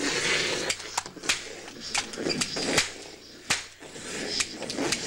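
Irregular sharp cracks, about ten in five seconds, with hissing noise between them: shots in a staged pistol fight.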